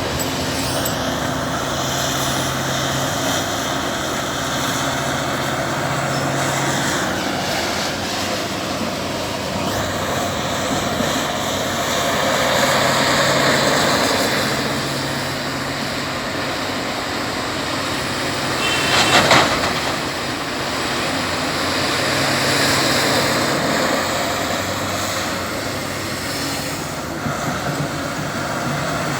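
Caterpillar 352F hydraulic excavator working: a steady diesel engine note with shifting hydraulic whine, swelling twice under load, and a short burst of metallic clanks about two-thirds of the way through.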